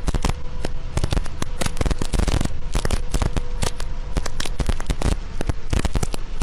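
Heavy rain pelting a vehicle's windshield and roof, picked up by a dashcam inside: a dense, irregular crackle of drops hitting.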